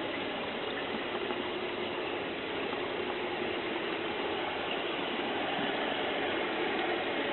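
Model train running over the track with rear double-heading locomotives, a steady rumbling noise that grows slightly louder near the end as it climbs.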